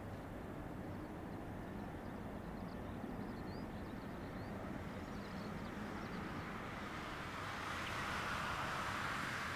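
Distant jet airliner engines at the airport: a steady low rumble and hiss, swelling to a louder rush about eight seconds in. A few faint short high chirps sound in the first half.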